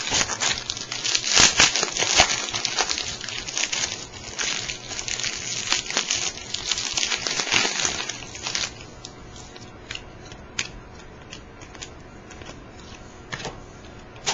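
Skybox basketball card pack wrapper crinkling as it is handled, densely for about eight and a half seconds. Then it stops, leaving a few scattered light clicks of cards being handled.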